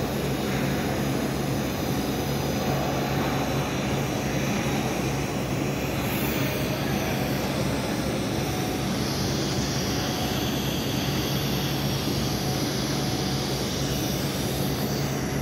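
TIG welding arc burning steadily on a 2-inch steel pipe joint, a continuous even hiss over a steady low hum.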